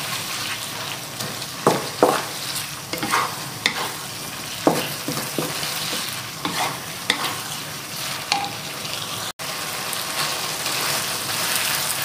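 Rice vermicelli with prawns, squid and mustard greens sizzling in a wok in a little sauce, as a wooden spatula tosses and scrapes it, giving irregular sharp scrapes and knocks over a steady sizzle. The sound cuts out for an instant a little past nine seconds in.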